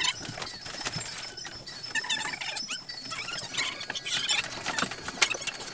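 Large cardboard boat hull scraping and creaking as several people tip it onto its side, with feet shuffling: an irregular run of short squeaks, scratches and knocks.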